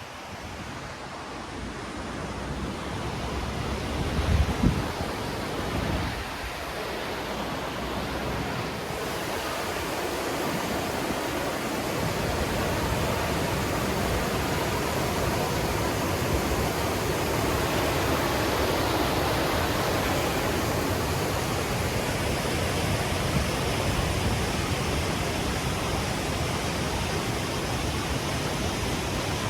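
Rushing creek water, a steady hiss like a small waterfall, growing louder over the first dozen seconds and then holding steady. A few low thumps come a few seconds in.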